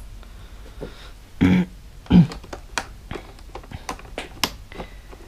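Small clicks and taps of a hand tool and plastic fasteners as a motorcycle's rear cowl is unfastened. Two short voice sounds come about one and a half and two seconds in.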